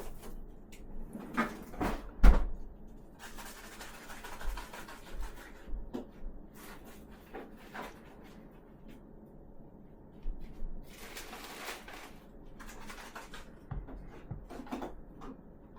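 A cat chewing and tugging at a string: irregular soft clicks, rubs and rustles, with one sharper knock about two seconds in.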